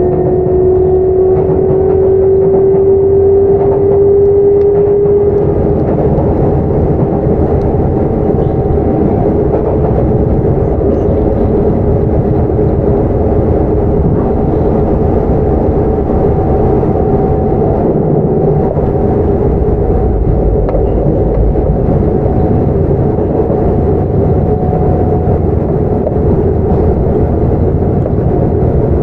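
Sotetsu 9000 series electric train running, heard from inside the car: a steady rumble of wheels on rail under the whine of its Hitachi IGBT VVVF traction motors and right-angle cardan drive. A motor tone rises slowly over the first five seconds, then fades into the running noise.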